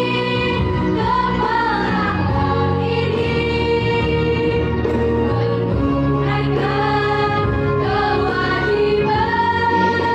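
Girls' school choir singing in several voice parts at once, holding long notes.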